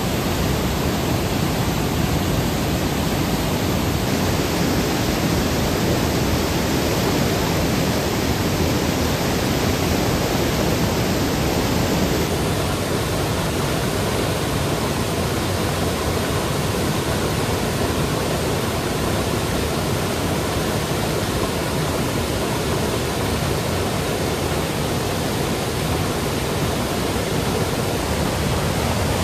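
Flooded mountain river rushing through whitewater rapids over boulders, a steady loud rush of water swollen by days of heavy rain. The tone shifts slightly about twelve seconds in.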